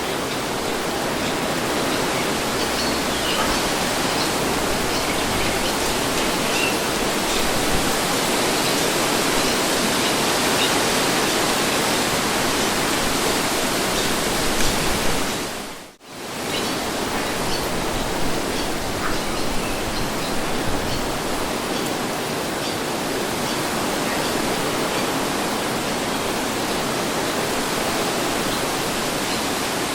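Steady breeze, an even rushing hiss that fades out sharply for a moment about halfway through and then comes back.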